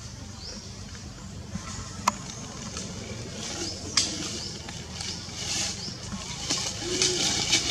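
Dry leaves rustling and crackling as a baby monkey handles a dry leaf against its mother, with two sharp clicks about two and four seconds in; the rustling grows louder in the second half.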